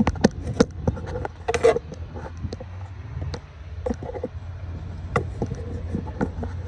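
Scattered clicks and metallic knocks of hand tools and parts being handled in an engine bay, a few with a short ringing tone, including a quick cluster about a second and a half in, over a steady low rumble.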